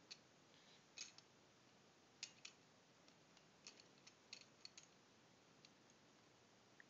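Faint scattered clicks and ticks of a plastic toy backhoe loader being handled, about a dozen in all, irregular, otherwise near silence.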